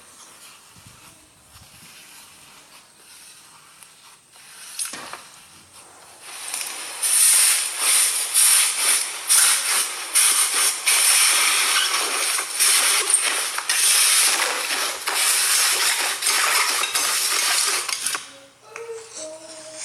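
Slime being squeezed and worked by hand, a dense run of crackling and quick clicks. It starts after a few quiet seconds and breaks off suddenly near the end.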